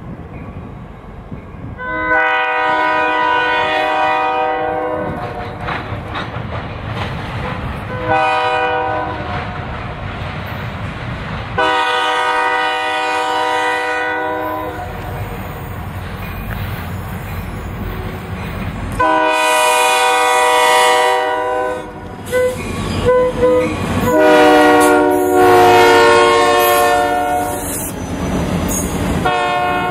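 Diesel freight locomotive's air horn sounding about five blasts as the train approaches. The last, loudest blast is lower in pitch as the locomotive passes close by, and the low rumble and clatter of the train's wheels follows.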